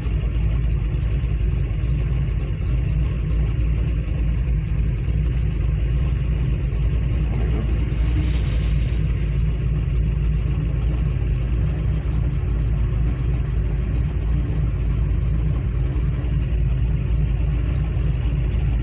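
Car engine and road noise heard from inside a moving car's cabin: a steady low rumble, with a brief rush of noise about eight seconds in.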